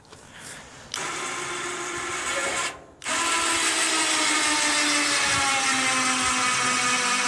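Small electric car-trailer winch winding in its cable. The motor runs for about two seconds, stops briefly, then runs again steadily, its pitch slowly sinking.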